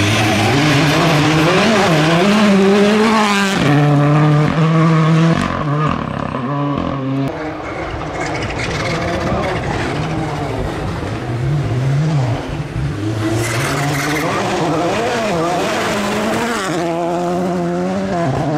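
Rally car engine revving hard on a gravel stage, its pitch rising and falling repeatedly through gear changes and throttle lifts, over the hiss of tyres on loose gravel.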